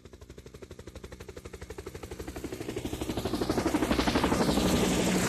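Helicopter rotor chop, about a dozen beats a second, drawing nearer and growing steadily louder, with a sweep in pitch near the loudest point as it passes close.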